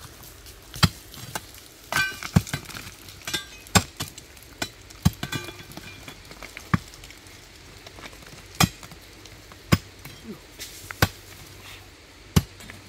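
Scattered sharp knocks and clinks of hard objects striking, at an uneven pace of about one a second. A few of them ring briefly.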